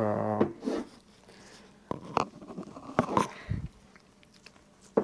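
A short steady tone at the very start, then scattered clicks and knocks from handling the KS LEV Integra dropper post and pressing its remote actuator lever to test the post.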